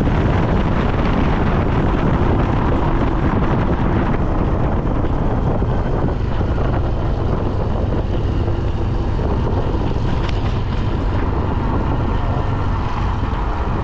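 Steady wind buffeting on the microphone over a low, even vehicle rumble, as when riding along a road.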